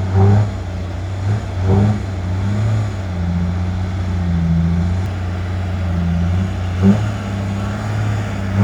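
Diesel dump truck engine labouring at low revs as the loaded truck climbs out of the pit, a steady low drone that swells slightly now and then with a couple of short blips. An onlooker suspects the truck has a weak throttle.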